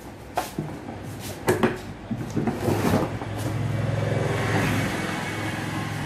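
Several sharp knocks and clatters as the concrete breaker and its bit are handled. Then, about three and a half seconds in, a steady low mechanical hum sets in and keeps going.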